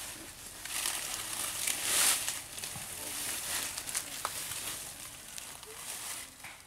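Rustling of grass and undergrowth, swelling and fading unevenly several times.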